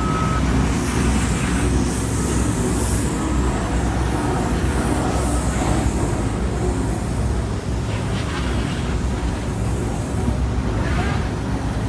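Steady low rumble of heavy diesel vehicles and machinery running, with road traffic noise.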